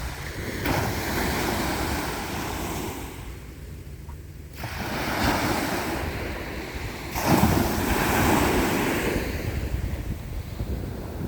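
Ocean waves breaking and washing up the shore, the surf swelling in surges: one wave builds about a second in, and a bigger one breaks a little past halfway. Wind buffets the microphone.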